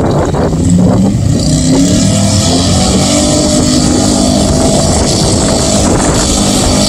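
Mud bog pickup truck's engine revving hard as it launches down the pit, its pitch climbing over the first couple of seconds and then holding high under full throttle.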